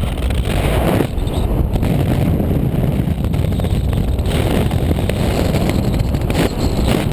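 Wind from the paraglider's flight rushing over the camera's microphone: a loud, low rumble that swells and eases in gusts.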